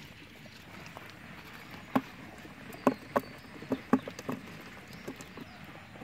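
Small fish and water dropping out of a banana-trunk trap into a plastic bucket: a quick cluster of sharp knocks and slaps around the middle, some with a dull thud.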